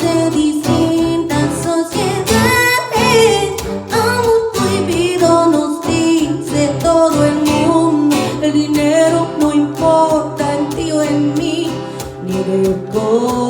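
A woman singing over guitar accompaniment, her voice wavering with vibrato on held notes.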